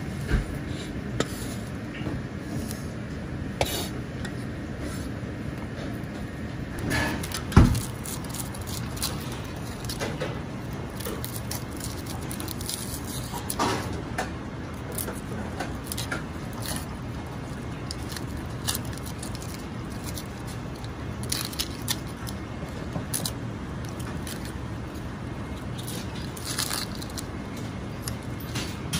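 Dry onion skins crackling and rustling in short bursts as onions are peeled by hand, over a steady low hum. A single sharp knock, the loudest sound, comes about seven and a half seconds in.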